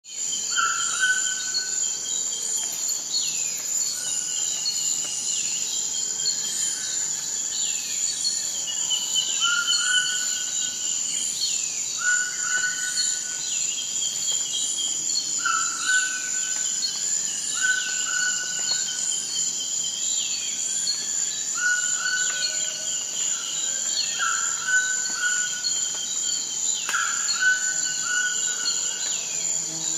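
Tropical rainforest ambience: a steady high-pitched insect drone under repeated bird calls, short whistled notes every second or two and quick falling calls.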